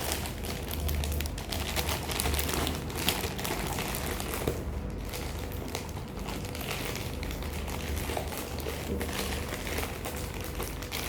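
A package being opened by hand: its packaging crinkles and rustles in a steady run of small, irregular crackles.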